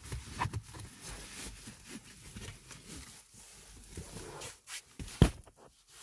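Handling noises from fitting a nozzle attachment onto a handheld car vacuum cleaner, which is not running: quiet rustling and small knocks, with one sharp click about five seconds in.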